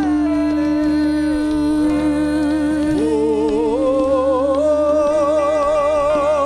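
Live worship music: a steady held note sounds under singing with vibrato, and the vocal melody steps up in pitch about halfway through.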